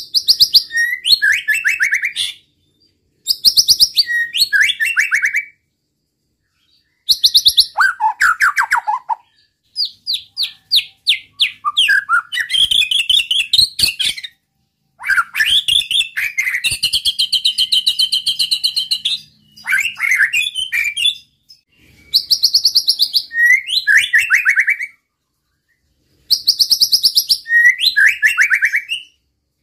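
A white-rumped shama (murai batu) singing loudly in phrases of a few seconds each, with short pauses between them. The phrases are made of rapid-fire trains of high repeated notes and downward-sliding whistles: the fast "shooting" (nembak) song style.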